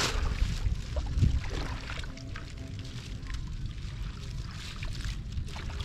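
Shallow water sloshing and splashing as a person wades and works his hands through it, with the louder splashes in the first second or so.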